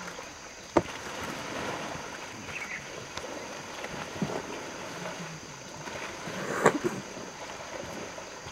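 An elephant splashing and thrashing in river water, over a steady wash of moving water. Two sharp knocks stand out, one about a second in and a louder one about two-thirds of the way through.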